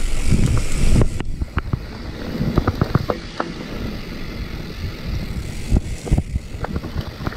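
Dartmoor Blackbird 2020 mountain bike riding down a rough dirt trail: tyres rumbling over the ground with frequent sharp knocks and clicks from the bike, and wind on the microphone.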